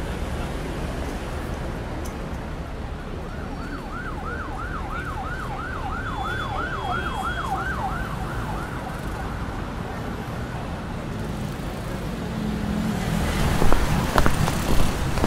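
Steady street-traffic background with an emergency-vehicle siren in its fast yelp mode, a rising-and-falling wail about three times a second, for several seconds from about three and a half seconds in. Near the end, louder noise with sharp knocks comes in.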